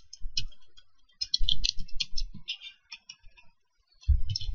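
Computer keyboard typing: a quick run of keystrokes, a pause of about a second, then a few more keystrokes near the end.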